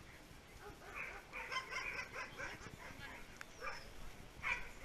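Dogs barking: a quick run of short barks starting about a second in, then a couple of single barks near the end.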